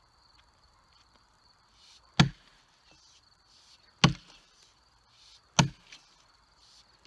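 Axe chopping into a log: three heavy strikes about one and a half to two seconds apart, each with a short ringing knock, and a fourth blow right at the end.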